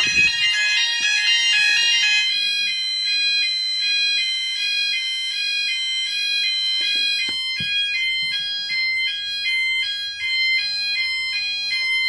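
Sounders of an addressable fire alarm system in full alarm after a manual call point test activation: a loud alarm tone that steps rapidly back and forth between pitches, overlaid on a steady high tone.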